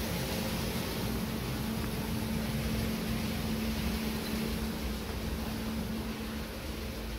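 Steady machine noise: a fan rushing evenly over a constant low motor hum.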